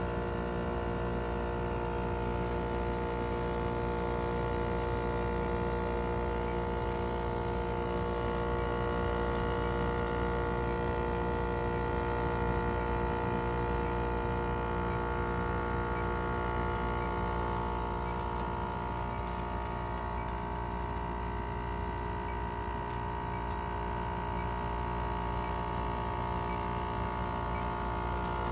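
ClimateMaster water-source heat pump running: a steady machine hum made of several fixed tones, with no change in pitch or level.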